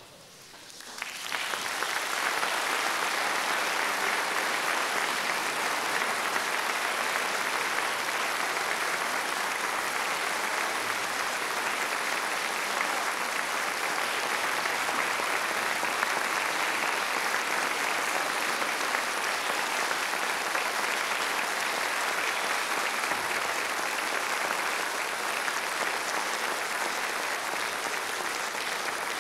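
A concert audience breaks into applause about a second in and keeps clapping steadily, a dense even clatter of many hands.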